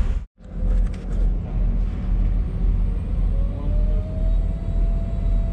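Steady low rumble of a sportfishing boat underway, engine and wind noise, after a brief cut-out near the start. A faint steady whine joins about three seconds in.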